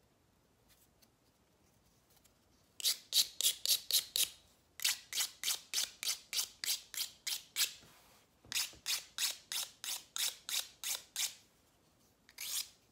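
Emery board sanding the edge of a piece of hard, heat-cured Ranger Quick Cure Clay: quick back-and-forth rasping strokes, about four a second. They come in three runs, starting about three seconds in, then one short scrape near the end.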